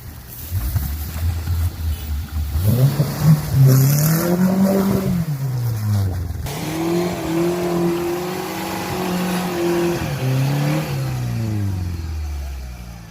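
Off-road 4x4's engine revving hard. The revs climb steeply a couple of seconds in, dip briefly, are held high for several seconds, then drop away near the end.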